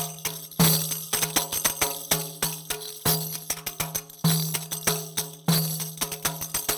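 Riq, a small frame drum with metal jingles, played with the fingers in a fast rhythm. A deep stroke on the drum head comes about every second and a quarter, with quick taps and jingle rattles between.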